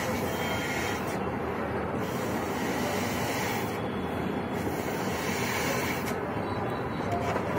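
A latex balloon being blown up by mouth: three long breaths rush into it, each about a second and a half, with short pauses between. A steady hiss runs underneath.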